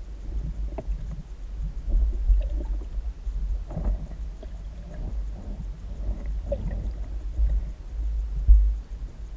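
Muffled underwater rumble picked up through a camera's waterproof housing, with scattered soft knocks and crackles and one louder thump near the end.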